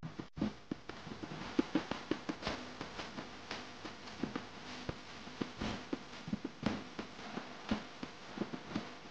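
Soft scraping with irregular light clicks and taps as a plastic scraper and a metal palette knife smooth whipped cream on a cake sitting on a glass-topped turntable.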